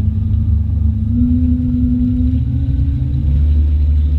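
Bayliner 742 motorboat's engine running under way, towing a wakeboarder: a steady low drone whose pitch climbs a little between about one and three seconds in as the engine speeds up.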